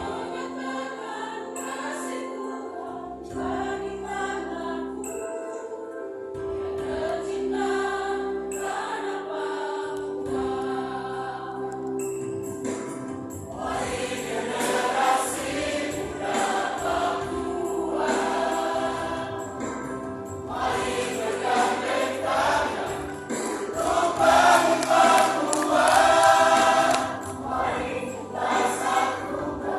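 A large combined choir singing in parts over a long-held steady note, swelling fuller and louder from about halfway through.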